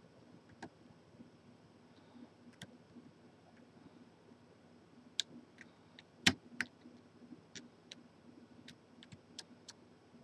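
Faint, irregular small metal clicks of a lock pick and tension wrench working the pin stack in the keyway of a large Corbin padlock. One louder click comes a little past the middle.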